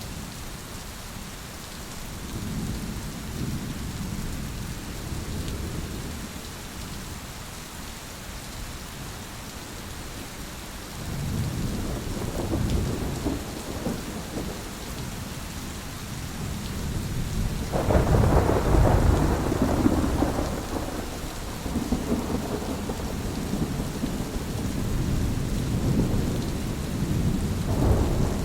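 Thunderstorm: rain falling with a steady hiss under rolling thunder. The thunder rumbles and swells, breaks in loudest and suddenly about two-thirds of the way through, rumbles on, and swells again near the end.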